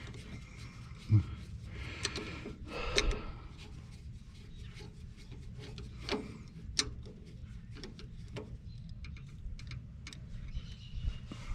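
Light metallic clicks and scrapes of a screwdriver working at a carburetor jet, scattered and irregular, over a steady low hum.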